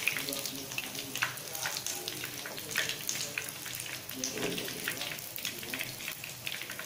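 Hot frying oil crackling and sizzling, with irregular sharp pops scattered throughout.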